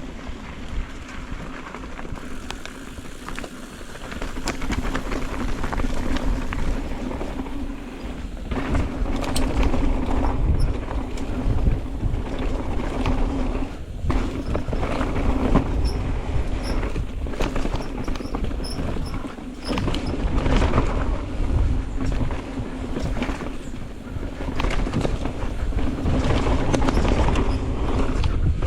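Mountain bike riding fast down a rough dirt trail: wind rumbling on the microphone, tyres running over dirt and roots, and frequent irregular knocks and rattles from the bike jolting over bumps.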